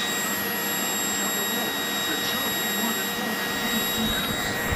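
Vacuum cleaner running steadily: an even rushing noise with a steady high whine through it.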